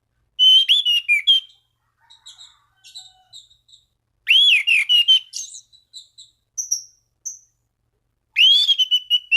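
Anis cendana thrush singing: three loud bursts of rich, sweeping whistled phrases about four seconds apart, with soft scattered chips and notes between them. This is a bold challenge song of the kind used to provoke rival thrushes into singing.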